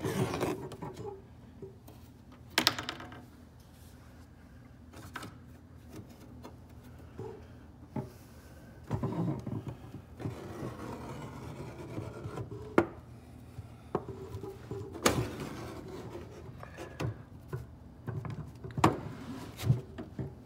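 Rubbing and scraping on the sealed metal liner of a wooden ammunition crate, with scattered sharp knocks and clicks as it is handled.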